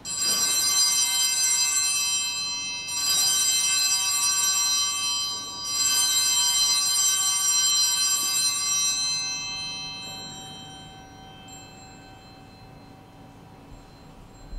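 Altar bells (Sanctus bells) shaken in three rings about three seconds apart, marking the elevation of the consecrated host. The last ring fades away over a few seconds.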